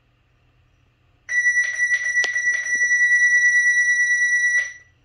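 Power wheelchair's electronic buzzer sounding one long, high, steady beep of about three seconds, starting about a second in. A few short clicks and rustles fall in its first half.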